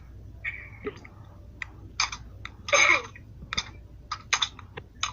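Computer keyboard typing: scattered, irregular key clicks picked up over a voice call, with a short throat-clearing-like noise about three seconds in.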